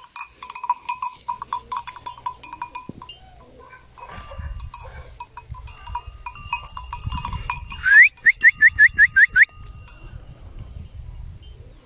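A goat's collar bell clanking again and again as the goats move. About eight seconds in comes a quick run of about nine short rising chirps, the loudest sound.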